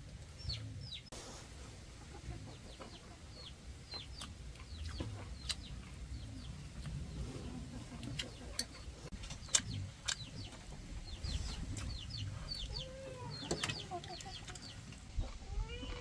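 Chickens clucking, with many short, high, falling peeps throughout. Lower, arching clucks come in during the last few seconds.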